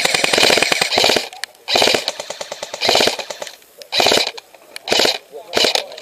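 Airsoft electric gun (AEG) firing full-auto, a rapid rattle of shots. One long burst lasts to just over a second in, then five short bursts follow roughly one a second.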